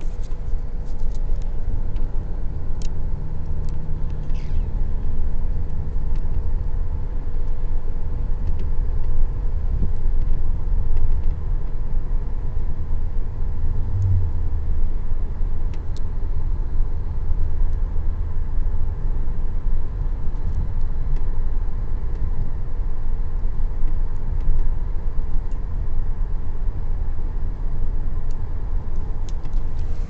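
A car driving along, heard from inside the cabin: a steady low rumble of road and engine noise with a thin, even hum over it.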